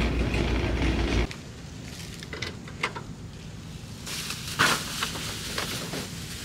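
A steady rattling rumble in a store aisle cuts off about a second in. Then come short knocks and rustling as shopping bags are loaded into a car's open trunk, the sharpest knock about halfway through.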